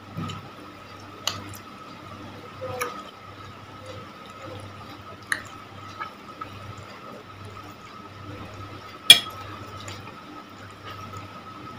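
Metal fork and spoon clinking and scraping on a ceramic plate during eating, about five sharp clinks with the loudest about nine seconds in, over wet chewing and a low steady background hum.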